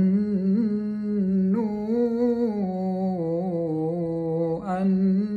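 A man chanting Quran recitation in a melodic tajweed style, drawing out long ornamented notes with a wavering pitch. A new phrase begins about a second and a half in and another near the end.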